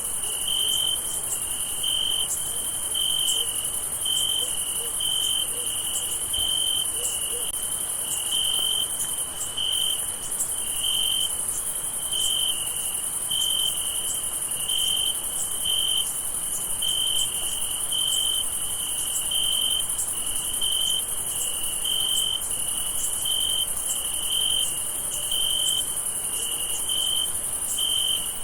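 Crickets chirping on a summer night: one chirps in regular pulses, about three every two seconds, over a continuous high-pitched insect trill.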